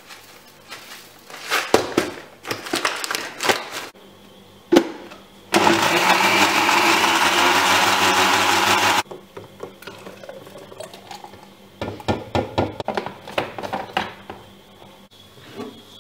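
Countertop blender running for about three and a half seconds, starting and stopping abruptly, blending a thick protein shake. Knocks and clatter of handling come before and after it.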